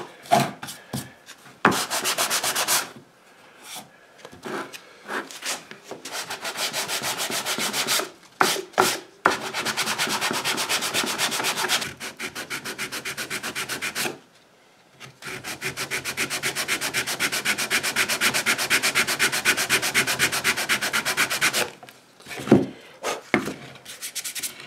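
Hand sanding with 120-grit sandpaper on a block, rubbing quick back-and-forth strokes over a 3D-printed pattern coated in high-build filler primer. The strokes come in several runs with short pauses between them.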